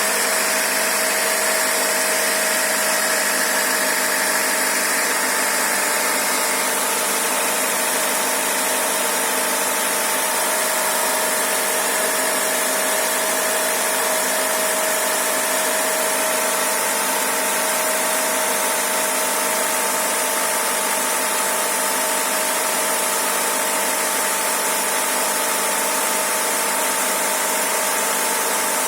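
Honda Civic's D15B 1.5-litre four-cylinder engine idling steadily from cold, with a rhythmic knock from the engine that shows when it is cold and whose cause the owner does not know.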